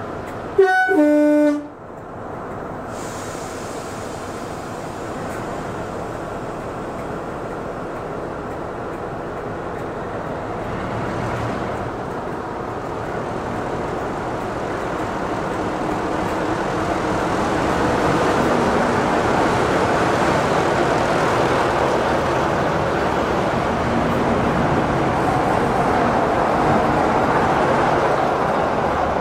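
BR Sulzer Type 4 'Peak' diesel locomotive sounding its two-tone horn briefly about half a second in, high note then low, then its twelve-cylinder Sulzer engine running under power as it pulls its train away and passes close by, growing louder towards the end.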